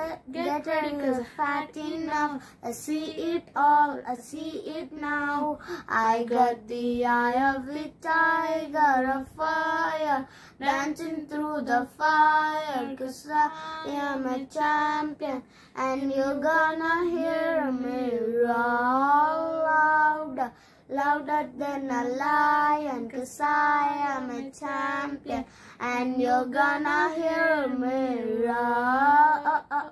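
A young girl singing a song unaccompanied, one melodic phrase after another with short pauses for breath.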